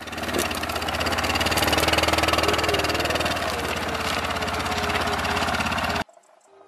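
Quad bike (ATV) engine running as it is driven off, growing louder over the first second or two and then holding steady with a fast even pulse, before cutting off suddenly near the end.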